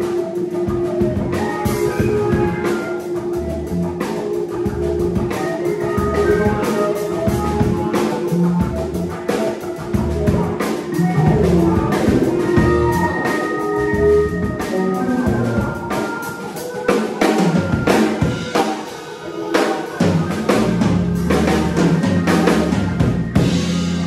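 A live soul-jazz band playing an instrumental, with a busy drum kit of snare and rimshot hits throughout. A long held note sounds through the first part, and low bass notes grow strong near the end.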